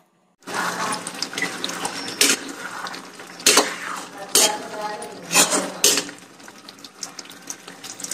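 A steel ladle stirring and scraping a thick peanut curry in a steel kadhai, with several sharp clinks of metal on metal. Near the end, water pours from a jug into the curry.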